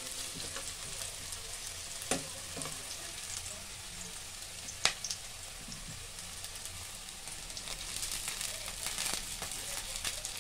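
Chopped onion and garlic sizzling in hot oil in a non-stick kadhai, being lightly fried. A steel ladle clicks sharply against the pan twice, about two and five seconds in, and the sizzle grows busier with crackles near the end.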